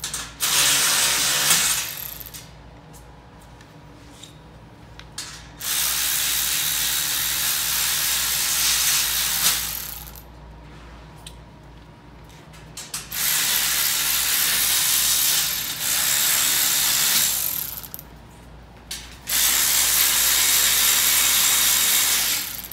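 Cordless electric ratchet with a 12 mm socket running in four runs of a few seconds each, backing the bolts out of a steel shipping frame.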